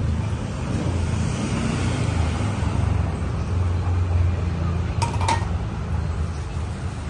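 Steady low rumble of road traffic, with two quick metal clinks about five seconds in from a ladle against a steel soup pot.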